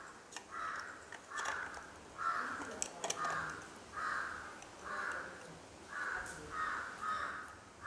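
A crow cawing over and over, about one caw a second, with a few light clicks of plastic camera parts being handled.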